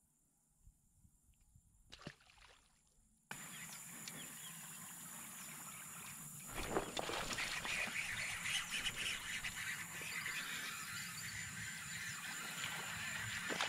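Near silence for about the first three seconds, then a steady, dense, high-pitched evening chorus of calling wildlife at the pond's edge, with one sharp click about halfway through.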